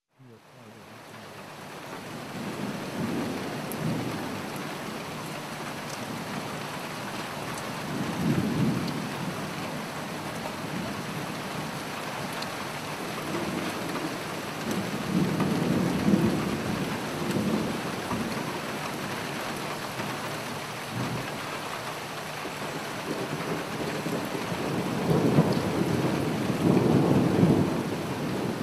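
Steady heavy rain with rolling rumbles of thunder that swell and fade several times. The sound fades in over the first couple of seconds.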